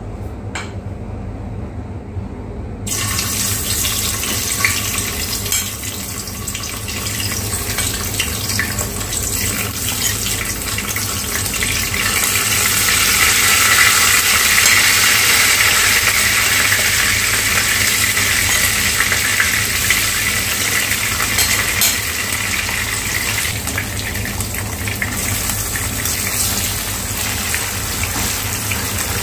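Chicken sausage slices sizzling as they fry in hot oil in a nonstick frying pan. The sizzle starts suddenly about three seconds in and is loudest around the middle.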